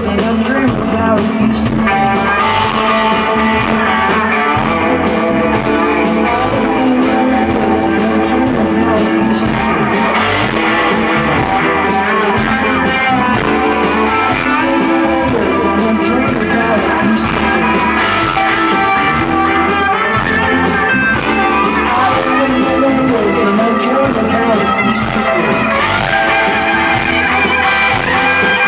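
Rock band playing live, with electric guitars and drums, and a voice singing.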